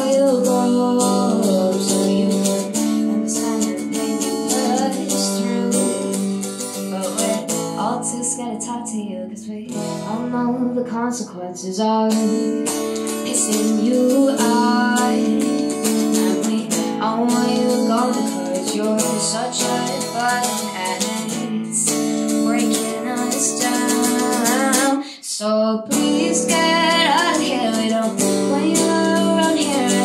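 A woman singing with her own electric guitar played through an amp. The music stops briefly near the end, then the singing and guitar resume.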